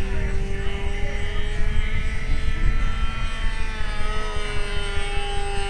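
Fox .45 two-stroke glow engine of a radio-controlled model airplane in flight, a steady high buzz from the engine and propeller, its pitch wavering slightly as the plane flies around.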